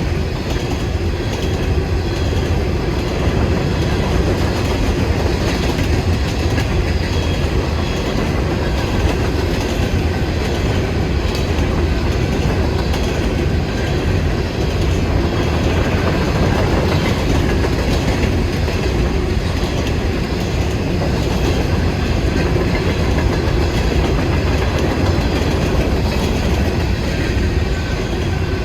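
Freight train passing, its railcars rolling by with a steady, unbroken noise of steel wheels on rail.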